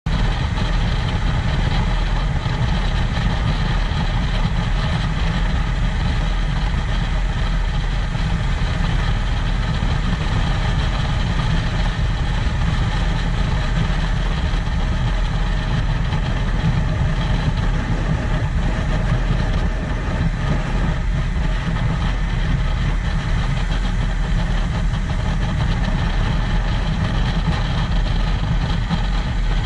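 Boat engine running steadily at cruising speed, with a strong low rumble and the rush of wind and water.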